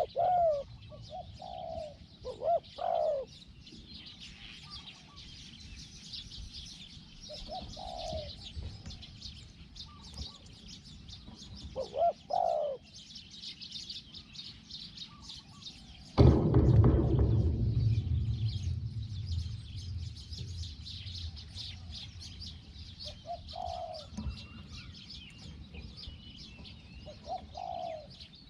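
Spotted doves cooing in short phrases, a few times, over a constant high chirping of small birds or insects. About halfway through, a sudden loud low rushing noise starts and fades away over several seconds.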